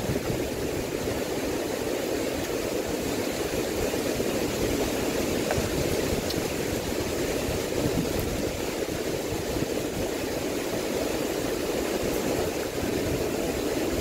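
Steady rushing of strong typhoon wind and rain, with the wind buffeting the microphone in an unsteady low rumble.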